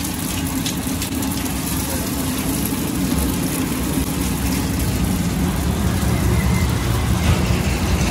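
Eggs frying in oil on a large flat iron griddle, sizzling with small spattering crackles, over a steady low rumble.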